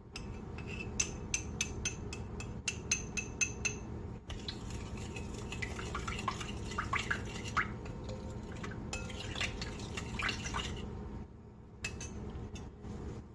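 Metal spoon clinking and scraping against a small ceramic bowl as instant yeast is tapped out into a glass bowl of milk and sugar: quick clinks for the first few seconds, then softer scraping and stirring with light ringing, and a few more clinks near the end.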